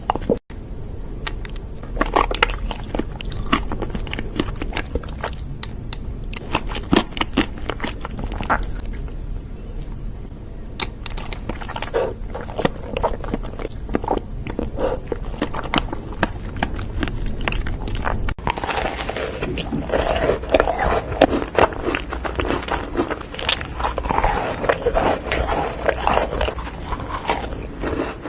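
Close-miked eating sounds: a person biting and chewing crunchy food, with many sharp crunches. About 18 seconds in it cuts to a denser run of chewing.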